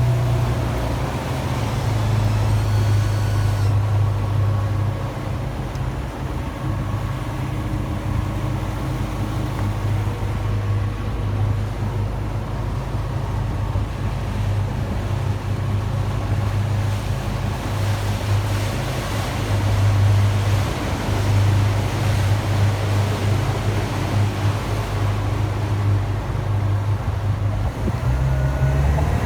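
Motorboat engine running steadily under way, a low steady drone over a rush of wind and water. The engine note rises slightly near the end.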